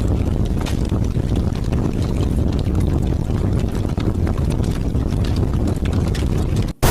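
Heavy rain in wind: a deep, steady rumble of wind under the patter of many separate drops. Near the end the sound drops out for an instant and gives way to a brighter, even hiss.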